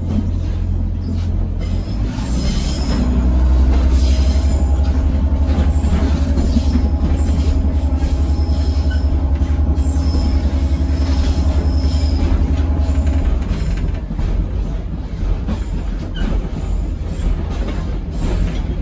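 Inside a British Rail Pacer railbus on the move: the underfloor diesel engine drones with a heavy low rumble, and short high squeals come from the wheels now and then. About 13 seconds in the engine note drops away as power comes off.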